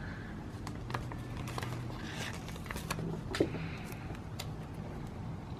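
Sheet of paper planner stickers being handled and set aside: light paper rustling with a few soft clicks and taps, over a steady low hum.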